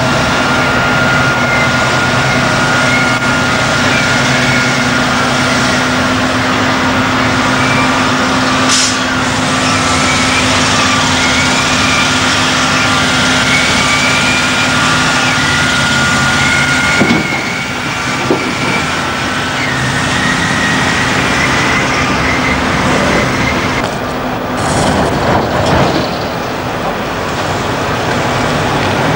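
Heavy off-highway dump trucks (Caterpillar 769C) running their diesel engines as they haul loads of rock, with a steady high whine over the engine note. Near the end, crashing and clattering of rock being dumped.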